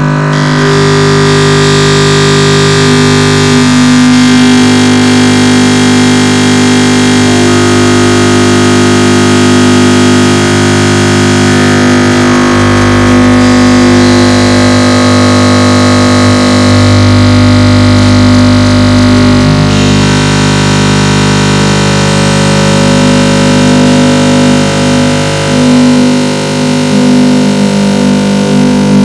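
Loud, noisy music of held, distorted chords that change every few seconds.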